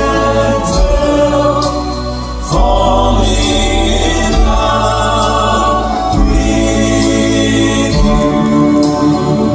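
Southern gospel male quartet singing in close harmony, accompanied by grand piano.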